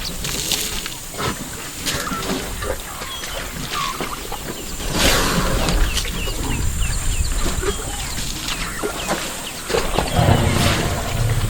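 Many small birds chirping, short rising and falling calls throughout, over a steady low rumble that swells near the end.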